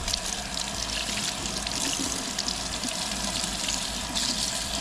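Tap water running steadily over a freshly skinned tilapia fillet as it is rinsed under the faucet.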